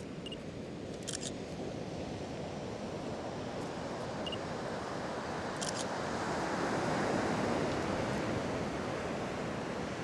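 Surf breaking on a pebble beach, a steady wash of noise that swells about six seconds in and eases off near the end, with two brief sharp clicks.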